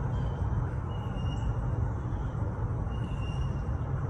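Jet airliner, a FedEx Boeing 757 freighter, passing overhead with a steady low engine rumble.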